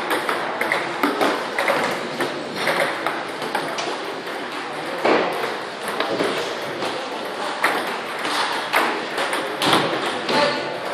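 Table tennis balls clicking off rackets and tables in quick, irregular succession during rallies, from the near table and several others in play.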